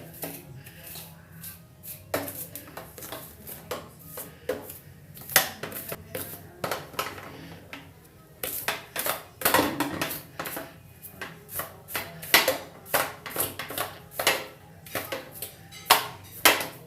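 A comb drawn through a doll's hair in quick, uneven strokes, giving sharp scratchy clicks several times a second.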